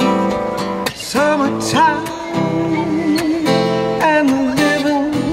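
Music: a strummed acoustic guitar with a voice singing drawn-out, wavering notes.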